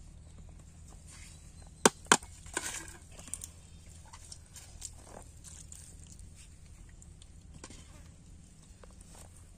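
Food being served onto a banana leaf: two sharp clinks about two seconds in, a fifth of a second apart, then a short scrape, and a few faint taps later, over a faint low hum.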